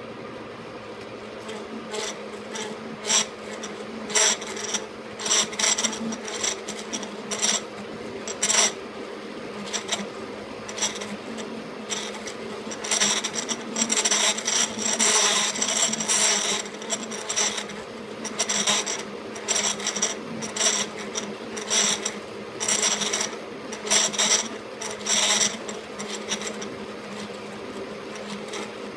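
An E1N lathe running with a steady hum, with irregular bursts of scraping noise from metal being cut. The bursts come thickest in the middle and second half.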